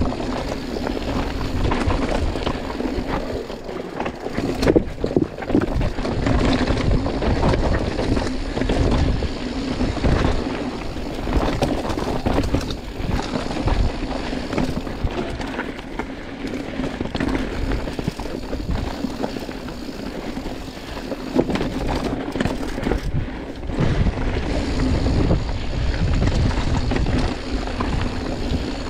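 An engine running steadily with a constant hum, with gusty wind rumble on the microphone.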